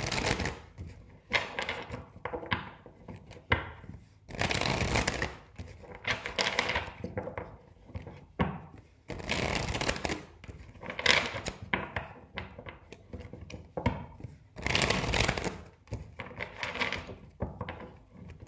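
A deck of cards being riffle-shuffled on a wooden table, over and over: a dozen or so rippling bursts of flicking cards, each lasting about a second, with knocks as the deck is squared against the tabletop between riffles.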